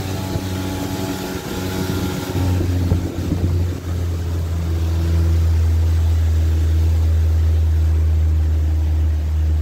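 Motorboat engine running with a steady low hum as the boat moves slowly over calm water. The engine note wavers about three seconds in, then holds steady and a little louder.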